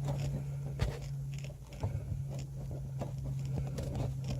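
Scattered small clicks, taps and scrapes of hands fumbling a 6x9 speaker and its screw into the holes of a car's rear parcel shelf, over a steady low hum.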